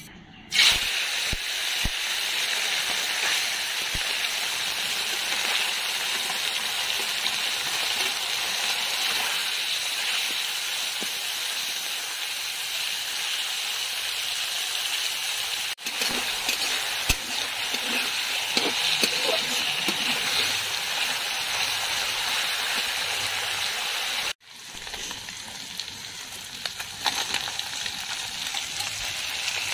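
Small mowa fish sizzling loudly as they fry in hot oil in an iron wok, starting suddenly about half a second in as they hit the oil, with the odd click of a spatula stirring them. After a sudden break about 24 seconds in, the frying goes on more quietly.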